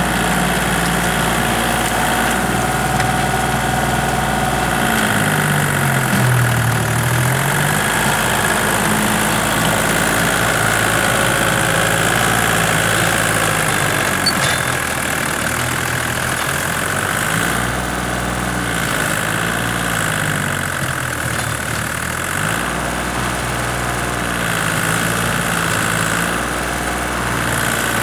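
Small Kubota tractor's diesel engine running under load as it drags a tillage implement through a wet rice paddy. The engine note sags and picks back up twice, about five seconds in and again around eighteen to twenty-two seconds, as the load on the engine changes.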